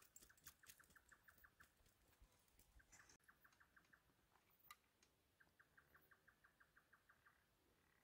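Near silence, with a faint calling creature of the night ticking rapidly, about seven or eight ticks a second, in runs of a second or two with pauses between. A soft click sounds about five seconds in.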